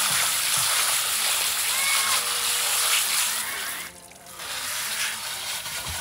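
Water running and splashing as rocks are rinsed out of a rock tumbler barrel. The flow cuts off briefly about four seconds in, then resumes more quietly.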